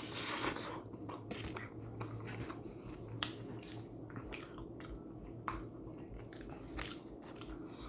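Person chewing a mouthful of Hot Pocket, with soft wet mouth sounds and scattered short lip-smacking clicks.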